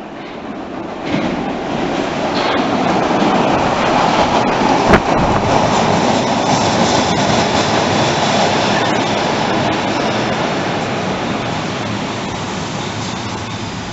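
Berlin U-Bahn train pulling into an underground station: the rumble of wheels on rail builds to a peak, with a single sharp clack about five seconds in. It then eases off as the train slows, with a faint high brake squeal in the second half.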